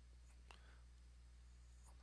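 Near silence: a steady low electrical hum, with one faint click about a quarter of the way in.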